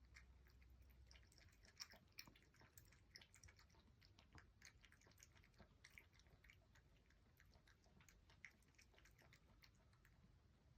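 Faint, rapid, irregular little clicks and wet smacks from a cat's mouth, several a second, with a few slightly louder ones.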